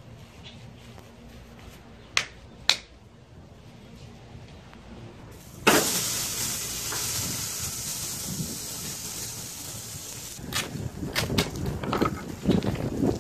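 Steak laid on a hot gas grill's grates, sizzling: the hiss starts suddenly about halfway through and cuts off abruptly a few seconds later. Before it come two sharp clicks, and after it a run of knocks and clatters.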